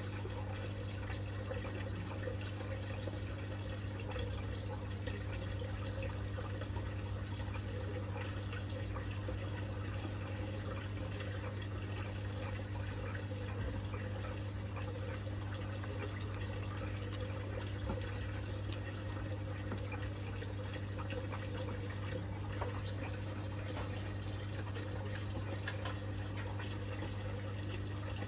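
Aquarium water bubbling and trickling steadily over a constant low hum from the tank's pump.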